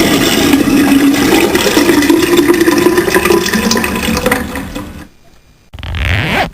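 Toilet flushing: a loud rush of water that fades out about five seconds in, followed near the end by a brief, different short sound.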